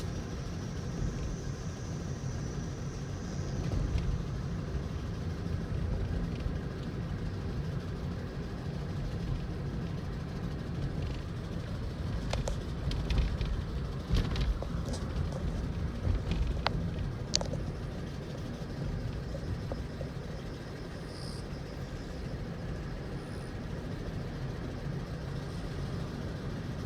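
Steady road and tyre rumble heard inside the cabin of a 2012 Toyota Aqua hybrid while it coasts and slows down. A faint high tone fades out over the first few seconds, and several sharp clicks come in the middle.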